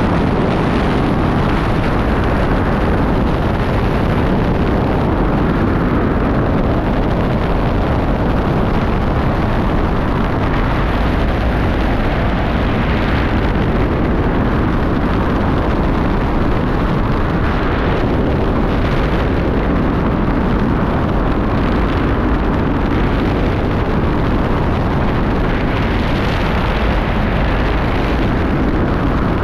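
Skydiving freefall wind noise: air rushing over and buffeting the camera's microphone in a loud, steady, deep rush that never lets up.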